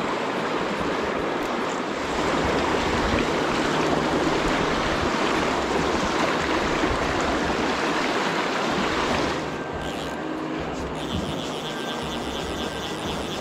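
River water rushing over a riffle: a steady hiss of flowing water. About nine seconds in it drops a little in level and becomes softer.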